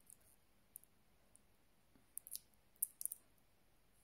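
Faint handling clicks from a stainless steel link watch bracelet and its paper price tag being turned in the fingers: a few scattered light clicks, most of them a little past halfway.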